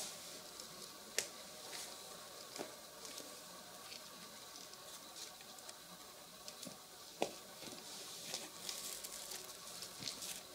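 Handling noise of shoes being picked up and turned over: faint rustling of mesh running-shoe fabric and laces with scattered light knocks, two sharper taps about a second in and about seven seconds in, and a denser stretch of rustling near the end.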